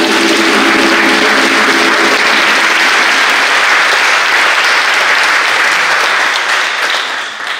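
Audience applauding, a dense steady clapping that fades out near the end. A steady low pitched tone sounds under it for the first two seconds or so.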